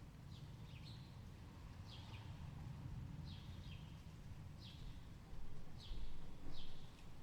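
A small bird repeating a short, high, falling chirp about every second and a half, over a steady low rumble that swells a few times near the end.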